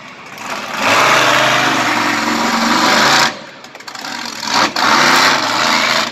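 Monster truck engine revving hard in two long bursts, the first starting about a second in and the second just before five seconds, easing off between them.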